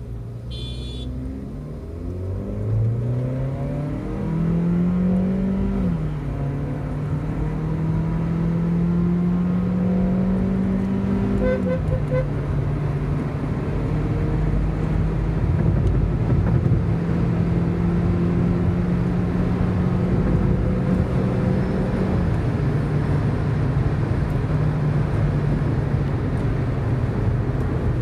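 Stage-2-tuned VW Polo 1.2 TSI turbo petrol engine with DSG gearbox, heard from inside the cabin, accelerating hard from a launch. The engine note climbs, drops sharply at upshifts about six and about twelve seconds in, then holds steady at cruise and steps lower near the end. A short high beeping sounds about a second in.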